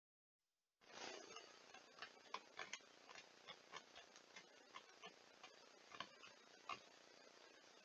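Beaver gnawing at the trunk of a large poplar tree: faint, irregular crunching ticks of teeth on wood, a few a second, over a steady hiss. The sound drops out for under a second at the very start.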